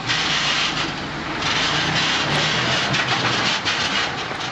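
Rotopress rotary-drum garbage truck churning refuse: a steady crackling, rubbing crunch of bags and rubbish being worked in the turning drum, over the truck's running engine.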